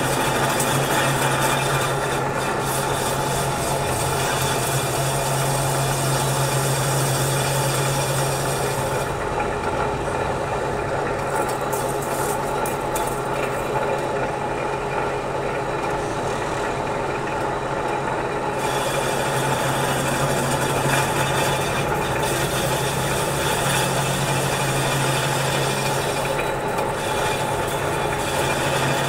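Metal lathe running, turning a steel shaft as the cutting tool peels off chips: a steady mechanical drone with a low hum. The higher, cutting part of the sound falls away for about ten seconds in the middle, then returns.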